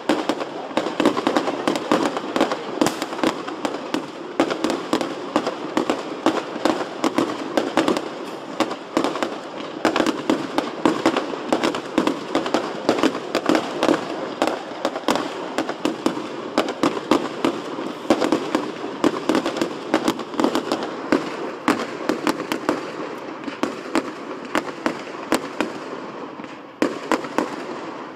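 Fireworks display in a dense barrage: rapid, overlapping bangs and crackling shell bursts with no let-up, thinning briefly for a moment near the end.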